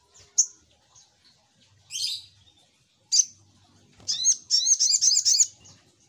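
Brown-throated sunbird (sogok ontong) calling with high, sharp chirps: a few single notes, then a rapid run of about eight chirps near the end.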